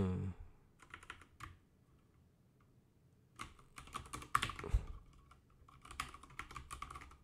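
Typing on a computer keyboard: a few keystrokes about a second in, then a quick run of keystrokes from about three and a half seconds on.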